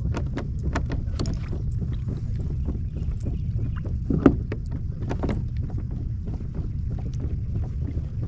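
Water lapping and splashing against the hull of a Hobie Outback kayak in shallow water, with a steady low rumble of wind on the microphone. There is one sharp knock about four seconds in.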